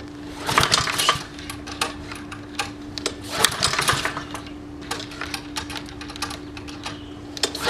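Honda lawnmower engine being pull-started without choke: two yanks of the recoil starter about three seconds apart, each a quick clatter of cranking, and the engine does not catch.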